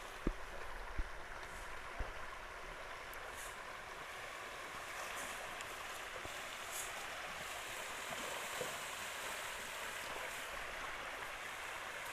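Pangasius catfish splashing and churning at the pond surface as they feed, a steady watery rush. Three short sharp knocks sound in the first two seconds.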